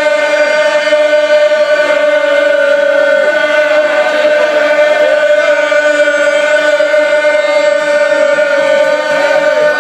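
A pub crowd of football supporters singing one long held note together, loud and steady in pitch, with a few small wavers.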